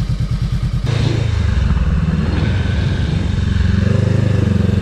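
Honda CB500X parallel-twin engine idling with an even pulse, then, about a second in, the bike is ridden off under power and the engine note rises as it speeds up.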